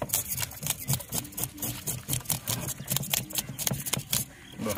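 Knife scraping the scales off a grey mullet on a steel plate: a rapid, irregular run of short rasping clicks as each stroke flicks scales loose.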